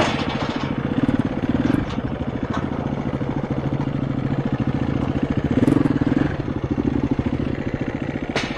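KTM 350 EXC-F's single-cylinder four-stroke engine running at low revs under a slow ride, with two brief small throttle openings, about a second in and again near six seconds. A few sharp clacks sound over it.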